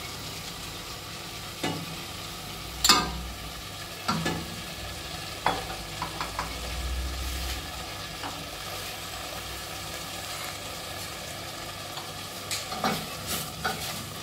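Chopped chicken, onion and herbs sizzling gently in olive oil in a stainless steel pot. A few sharp knocks of a spoon against the pot come in the first six seconds, the loudest about three seconds in, and wooden-spoon stirring knocks and scrapes through the food near the end.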